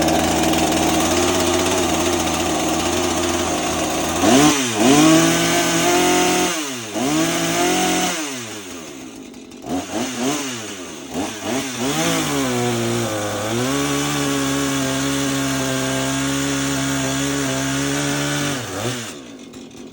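Two-stroke chainsaw with a freshly sharpened chain running at high throttle. Its engine note dips and recovers several times as it is worked, typical of the chain biting into wood, then steadies and drops away near the end.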